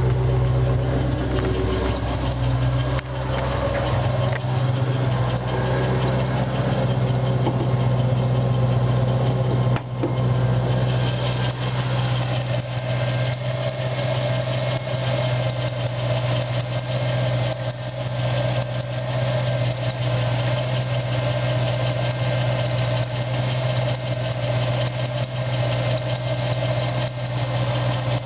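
Supercharged 4.6-litre V8 of a 2004 Mustang SVT Cobra idling in the open engine bay, with a steady hum and a higher steady tone that grows stronger about twelve seconds in. The owner takes the abnormal noise for a fault in the Eaton supercharger, suspecting its bearings, after the smooth and idler pulleys were replaced.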